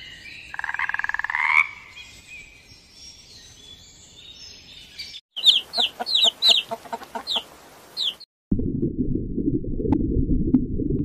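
A green tree frog's short pulsed croak rising in pitch, then a chick peeping in a quick run of high, falling peeps. About three-quarters through, a steady low underwater rumble with scattered clicks takes over.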